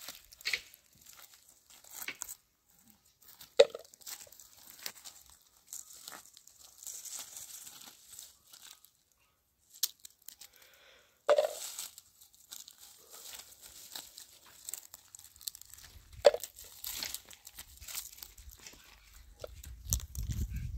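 Scattered sharp snaps and crunches with rustling between them, the loudest snap about halfway through, and a low rumble building near the end.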